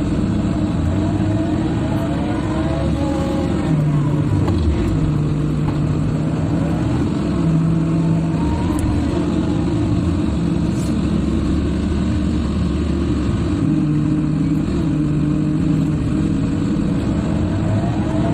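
Diesel engine of a Halla 130 wheel excavator running steadily under load, heard from inside the cab, with a hydraulic whine that rises and falls several times as the boom and bucket move earth.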